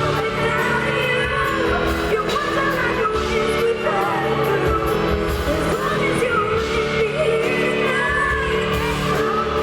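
Live pop ballad in an arena: a woman singing over sustained band chords.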